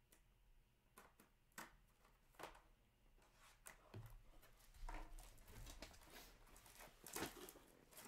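Faint crinkling and light clicks of a foil trading-card pack being handled and torn open. There are a few separate ticks at first, then more continuous crinkling from about halfway through.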